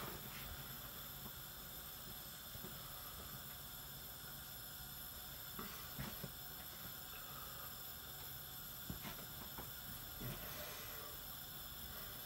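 Curry sauce heating in a frying pan on a gas hob as it comes up to the simmer: a faint, steady hiss with a few soft ticks.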